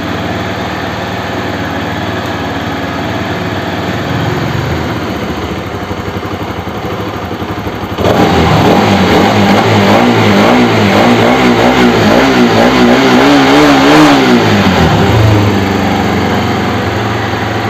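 Bajaj RS200's freshly rebuilt single-cylinder liquid-cooled four-stroke engine running after starting, idling steadily, then revved up and held higher for several seconds from about halfway through before dropping back to idle. The engine sounds smooth, the earlier engine noise gone.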